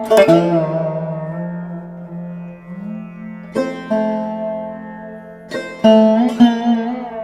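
Background music: a plucked string instrument playing sharply struck notes that ring and die away, some bending in pitch, over a steady low drone, in the manner of a sitar.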